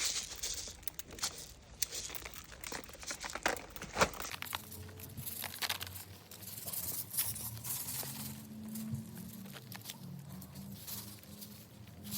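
A plastic packet crinkling and rustling, with scattered sharp clicks, as slug and snail treatment is shaken out around plants. A faint low hum comes in about a third of the way through.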